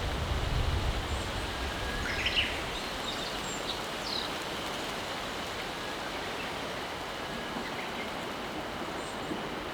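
Mountain river flowing with a steady rushing murmur, with a few short bird chirps about two to four seconds in and faint ones near the end. A low rumble fades out in the first couple of seconds.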